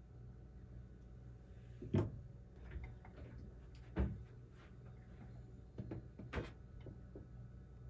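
A few sharp knocks and clacks of objects being handled, the loudest about two, four and six and a half seconds in, with quieter taps between.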